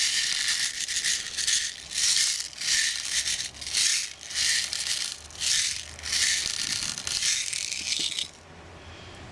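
Steel BBs shaken out of a plastic bottle, rattling in the bottle and into a metal tin lid. The shakes come about two a second and stop about a second before the end.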